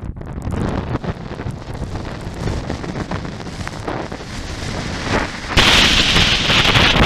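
Typhoon wind roaring against the building and buffeting the microphone: a rough, gusting rush that grows louder about five and a half seconds in.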